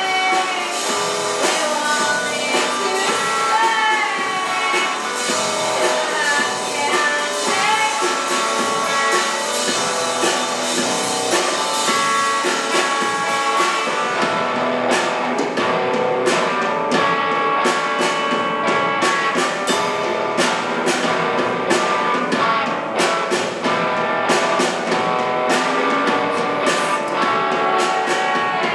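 Live rock band playing: two electric guitars through amplifiers and a drum kit, with a woman singing lead in the first part. From about halfway the drum and cymbal hits come through clearly in a steady beat.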